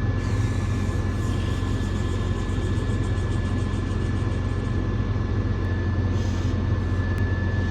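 Steady engine and road rumble inside the cab of a moving vehicle, with a thin high-pitched tone held throughout.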